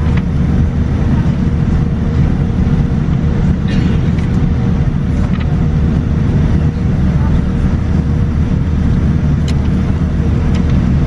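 Steady low cabin rumble inside a Boeing 787-9 airliner at the gate during boarding, with a faint steady hum, the sound of the cabin air-conditioning and ventilation. A murmur of passenger chatter and a few light clicks sit over it.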